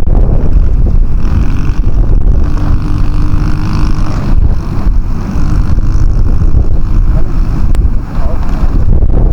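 Heavy wind buffeting on the microphone, a loud steady low rumble.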